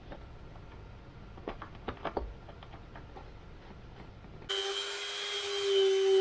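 A few light clicks of wires and connectors being handled, then about four and a half seconds in a handheld rotary tool starts and runs with a steady high whine, its bit cutting into the EPP foam of the model's boom.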